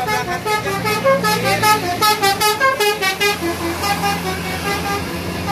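Tour bus's basuri multi-tone "telolet" horn playing a fast melody of short notes over the bus engine running. The notes come thick and fast for about three seconds, then slow to a few sparser notes.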